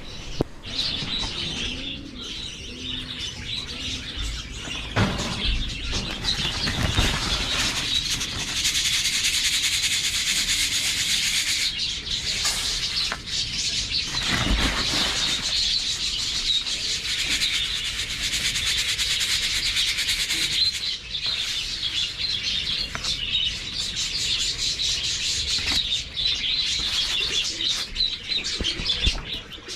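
A flock of budgerigars chattering and chirping continuously, with a few short knocks or rustles.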